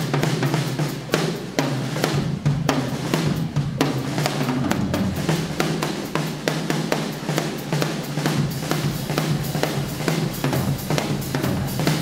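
Jazz drum kit solo: a dense run of rapid snare strokes and rolls over bass drum and cymbals.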